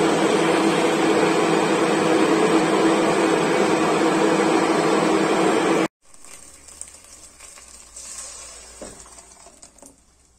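Necchi countertop blender motor running steadily at full speed, pureeing tomatoes, red bell peppers and onion into a smooth sauce, then cutting off suddenly about six seconds in. Quieter clatter follows, and near the end the thick puree is poured from the blender jug into a pot.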